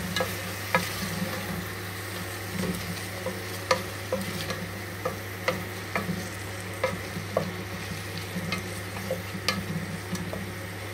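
Chicken stew sizzling in a pot on the stove while a spoon stirs it, knocking and scraping against the pot in sharp, irregular clicks about once or twice a second.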